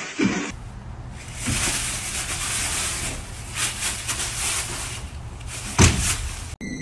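Two raccoons scuffling in dry leaves, a rough rustling noise with a sharp, loud knock near the end.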